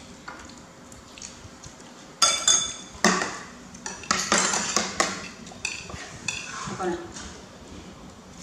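Metal spoons clinking and scraping against ceramic plates and bowls, in a run of sharp clinks with a short ring that starts about two seconds in and dies away about seven seconds in.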